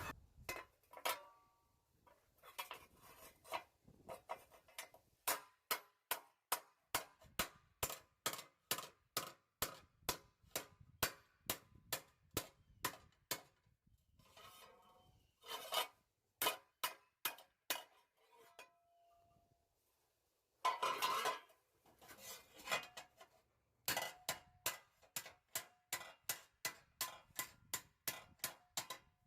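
Hammer blows on a piece of sheet metal being shaped cold over an anvil, struck in runs at about two blows a second with short pauses between runs; some blows ring briefly.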